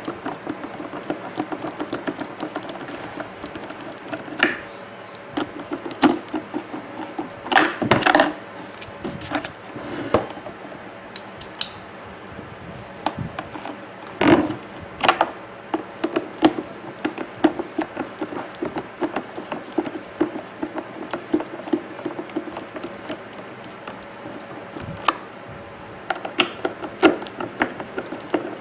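Screws being backed out of a plastic coffee maker housing with a screwdriver: faint scratching and ticking, broken by irregular clicks and knocks as the tool and parts are handled, a few of them louder.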